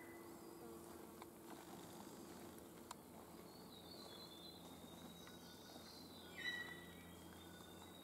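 Quiet forest ambience with faint, thin, high bird calls, and one short louder note about six and a half seconds in.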